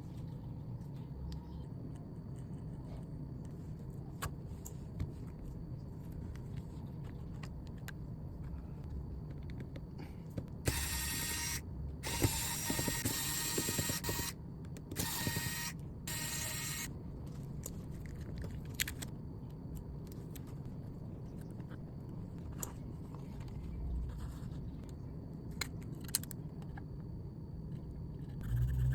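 Small repair tools clicking and scraping on a smartphone during a display replacement, over a steady low hum. In the middle, a loud hiss comes in bursts for about six seconds, stopping and starting several times.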